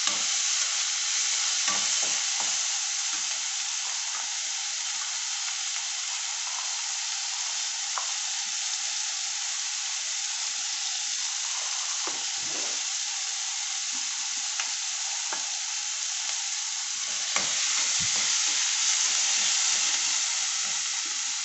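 Sliced onions sizzling in hot oil in a kadai as they are sautéed toward translucent, with a metal spatula scraping and clicking against the pan as they are stirred. The sizzle grows louder for the last few seconds.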